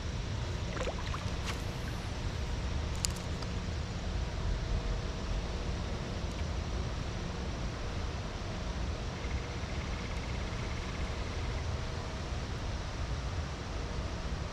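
Steady rushing of a flowing creek, with a low, uneven rumble of wind on the microphone. A few faint clicks in the first few seconds.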